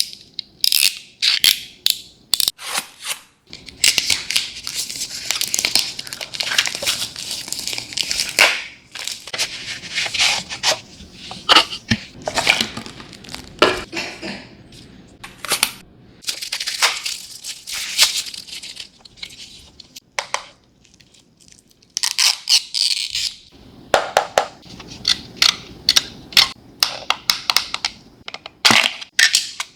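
Plastic and cardboard packaging handled while a label printer is unboxed: crinkling, tearing and scraping, broken by many sharp clicks and knocks, with a short lull about two-thirds of the way through.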